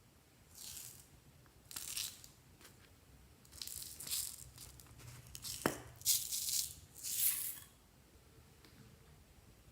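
Handling noises in a series of about six short rattling, rustling bursts, with one sharp click about halfway through. The bursts stop about two seconds before the end.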